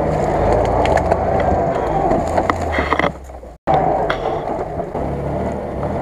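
Engines of UAZ off-road vehicles running steadily as they crawl through the forest, with scattered knocks and clicks. The sound dips and cuts out for a moment about three and a half seconds in, then picks up again.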